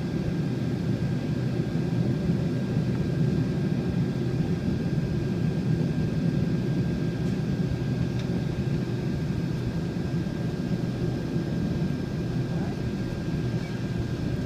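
Cabin noise of a Boeing 767-400ER taxiing on the ground: a steady low rumble from the idling jet engines and the rolling airframe, with a thin steady whine above it.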